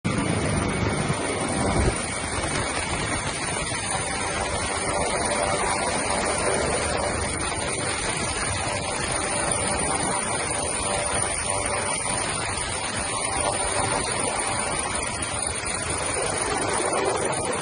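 Steady rush of a hovering helicopter's rotor and turbine engines, heard from inside the cabin through the open door.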